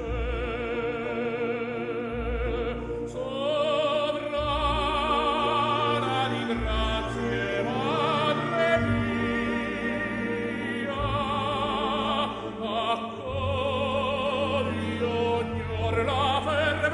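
Operatic music: a singer's voice with strong vibrato over a sustained orchestral accompaniment.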